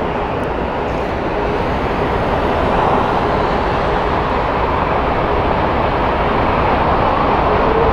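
Airbus A380's four turbofan engines at taxi power as the jet rolls slowly past: a loud, steady jet roar with a faint whine, and a clearer steady whine that comes in near the end.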